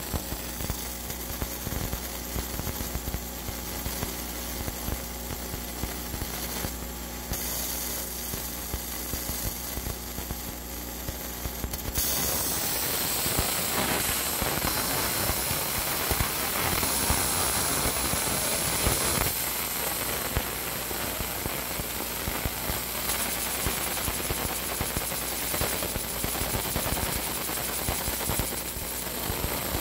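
Laser engraver burning through the powder coat on a metal manifold: a dense, rapid crackling over a steady machine hum. It gets louder about twelve seconds in.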